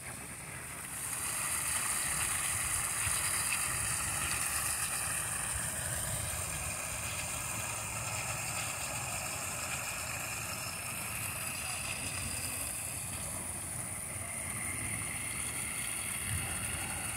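Water gushing from an outdoor standpipe spigot and splashing into a plastic kiddie pool, a steady rushing hiss that gets louder about a second in.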